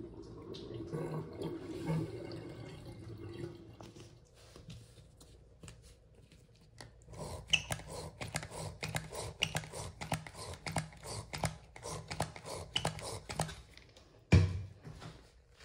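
Water running down a drain, fading away over the first few seconds. Then a foaming soap pump squirts foam into a small toilet bowl, a quick irregular run of soft clicks, followed by one loud thump near the end.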